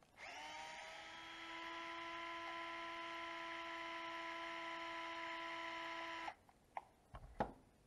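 DeWalt cordless drill-driver spinning up quickly and running at a steady high whine for about six seconds as it backs a skid plate screw out of an RC truck chassis, then stopping abruptly. A few light clicks and a knock follow near the end.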